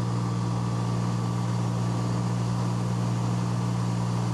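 Steady, unbroken drone of an aircraft engine carrying the aerial camera.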